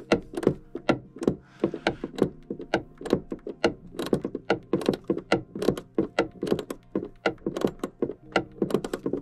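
90-tooth ratchet being worked back and forth, giving a fast, uneven series of sharp clicks, several a second.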